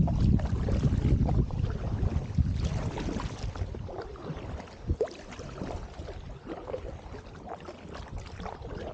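Double-bladed paddle strokes splashing and dripping beside an inflatable canoe, with wind buffeting the microphone during the first three seconds or so. A single sharp tap about five seconds in.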